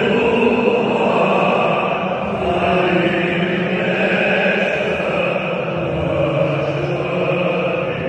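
A packed stadium crowd of football supporters singing together in unison, thousands of voices blending into long held notes that echo around the stands.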